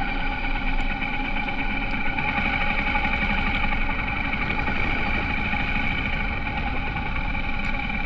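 Honda H'ness CB350's single-cylinder engine running steadily at an even pitch.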